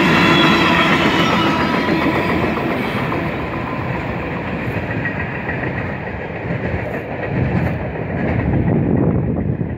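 Freight train's steel wheels rolling over the rails as the last tank cars pass and draw away. A high ringing from the wheels and rails dies out within the first few seconds, and the rumble fades as the train recedes.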